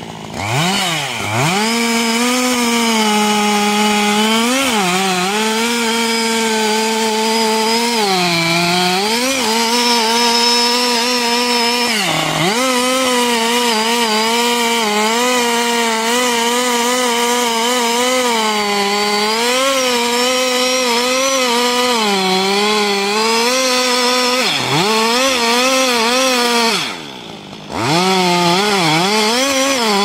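Chainsaw running at high revs while cutting into a large tree trunk. The engine pitch sags and recovers again and again as the chain bites into the wood. Near the end it eases off for about a second, then revs back up.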